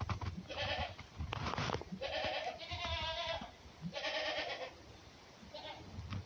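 Baby goat bleating four times, the second bleat long and quavering, the last one faint. A short scuffling noise comes about a second and a half in.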